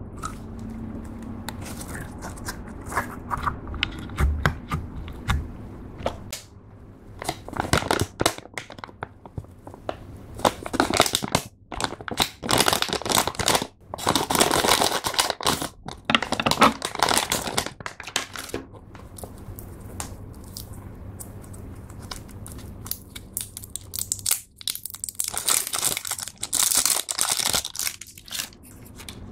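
Hands squeezing clear slime packed with small beads, with soft clicks and crackles, then the crinkling of a plastic slime packet being cut open with scissors and handled, loudest and densest in the middle of the stretch.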